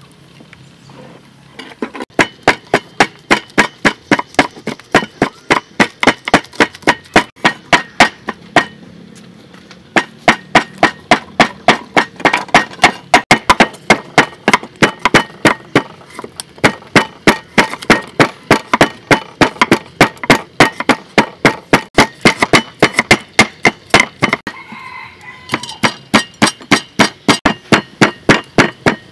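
A large kitchen knife chopping rapidly on a wooden cutting board, about four strokes a second. It stops briefly near the end, then resumes.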